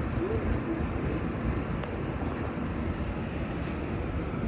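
Steady rumble of an R46 subway car rolling along elevated track, heard from inside the car.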